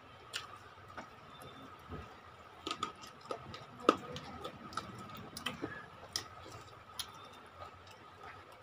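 Mouth sounds of people eating rice and chicken curry by hand: irregular sharp clicks and smacks of chewing, the loudest about four seconds in, over a faint steady high tone.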